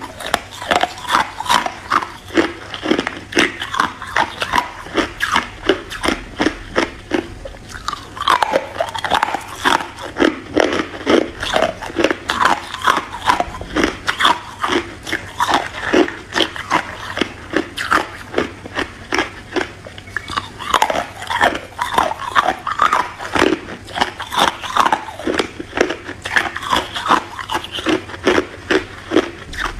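Hard clear ice cubes being bitten and crunched between the teeth: a steady run of sharp cracking crunches, about two a second.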